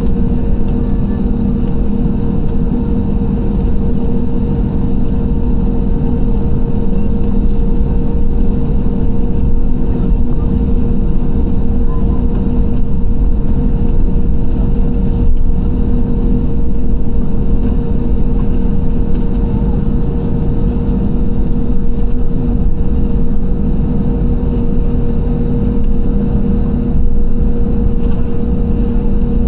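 Airliner engines running, heard inside the passenger cabin: a loud, steady rumble with a constant low hum, no rise or fall.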